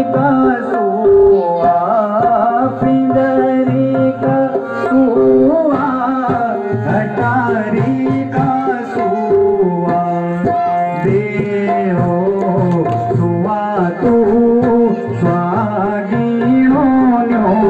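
Harmonium and tabla accompanying a singer in a Garhwali mangal song: the harmonium holds steady notes while the tabla beats a running rhythm and the voice glides between notes.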